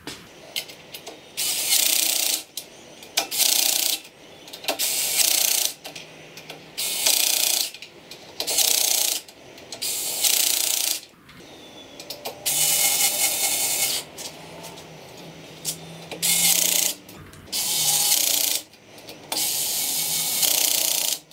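Cordless drill-driver with a hex bit running in about a dozen short bursts, driving screws through the Y-axis gantry plate into the aluminium extrusion and tightening them.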